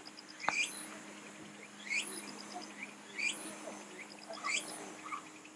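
A bird calling repeatedly, a short rising call about every second and a half, over a faint steady low hum, with one sharp click about half a second in.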